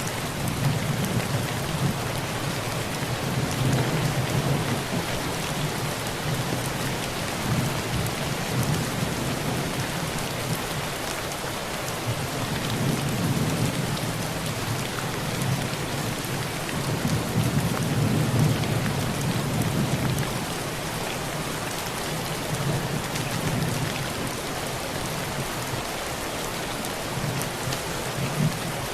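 Heavy rain falling steadily on a tin roof, with low rolls of thunder that swell and fade several times.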